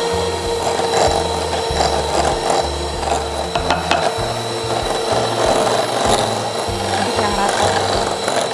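Electric hand mixer running steadily, its beaters whirring through softened butter in a glass bowl with a constant motor whine. Background music with a changing bass line plays underneath.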